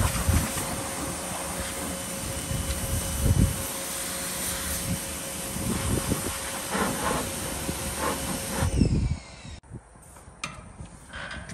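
Pressure washer running, its wand spraying hard paving with a steady hiss over a constant hum. It stops near the end, leaving a few light clicks.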